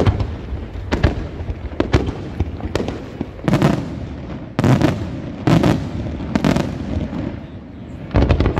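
Aerial firework shells bursting in a steady series of bangs, about one a second; from the middle on the booms are longer and fuller, with a strong bang near the end.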